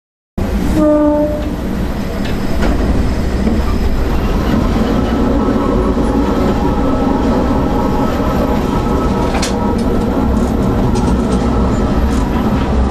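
Sanriku Railway diesel railcar heard from the cab: a short horn blast lasting about a second, then the steady rumble of the train running along the track, with a few rail-joint clicks near the end.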